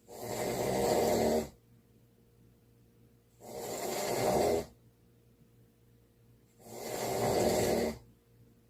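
A sleeper snoring: three loud snores about three seconds apart, each building up over about a second and then cutting off sharply.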